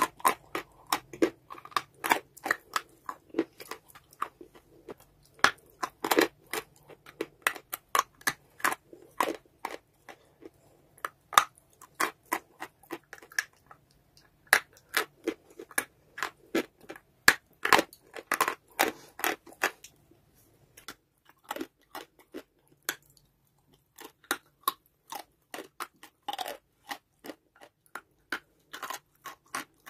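Close-up biting and chewing of dry white chalky clay: a quick run of sharp, dry crunches and snaps, a few bites at a time.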